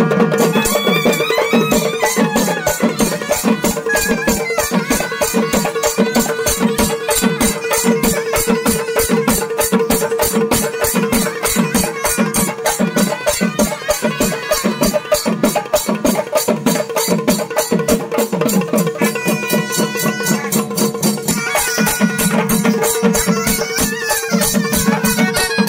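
Traditional Tamil festival drums beating a fast, steady rhythm over a held droning note, accompanying a possession dance.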